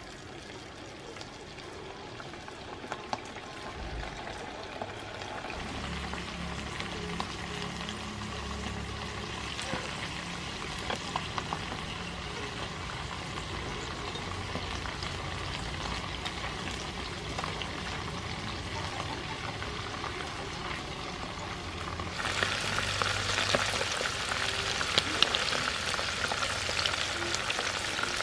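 Noodle-wrapped shrimp deep-frying in a pan of hot soybean oil: a steady sizzle that builds slowly, with occasional light clicks. With about six seconds left it jumps suddenly louder and brighter.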